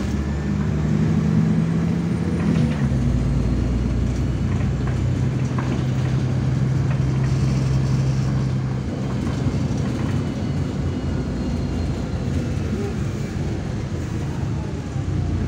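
MAZ-103 city bus heard from inside the passenger cabin while it drives: a steady low engine drone over road noise. The engine note steps down in pitch about two and a half seconds in and fades out about nine seconds in, leaving mostly road noise.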